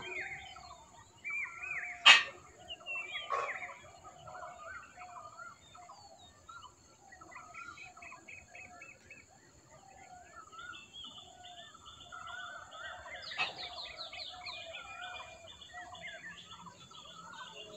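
Birds chirping and calling in short repeated notes throughout, with a few sharp knocks, the loudest about two seconds in.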